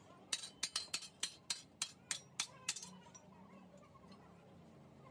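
Hand hammer striking a curved steel strip on a metal jig, about ten sharp ringing blows at three to four a second that stop about three seconds in: the strip is being shaped to the curve of a leaf spring equaliser.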